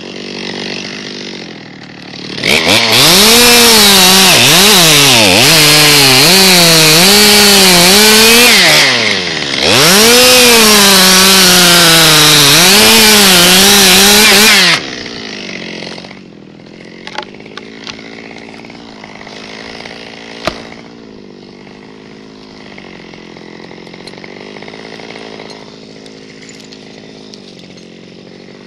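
Stihl MS 200T top-handle two-stroke chainsaw revving up about two and a half seconds in and cutting through the pine trunk, its engine pitch dipping and rising under load, with a brief let-off partway through. It then drops back to idle for the rest, with a few light clicks and one sharp knock.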